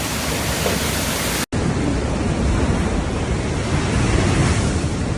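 Cyclone storm noise: a steady rush of wind and heavy rain, dropping out for an instant about a second and a half in.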